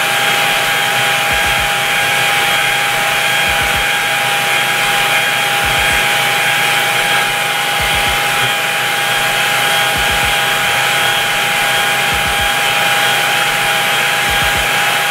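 Handheld hair dryer running steadily, a constant whine over the rush of air, drying a layer of freeze spray on wig lace.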